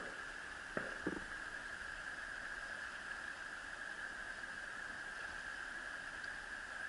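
Steady rushing of a river's current over rocks and a riffle, with two short faint sounds about a second in.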